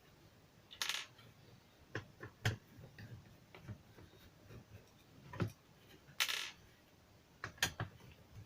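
Scattered light clicks and knocks with two short scrapes, about a second in and past six seconds: small plastic and metal parts of a portable speaker being handled and taken apart.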